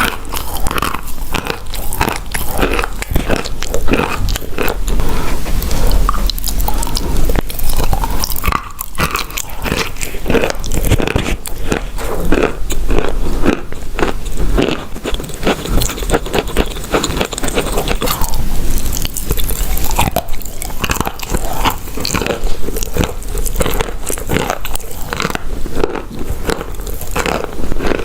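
Close-miked biting and chewing of hard, chalk-like pieces: dense, irregular crunches packed several to the second, with no pauses.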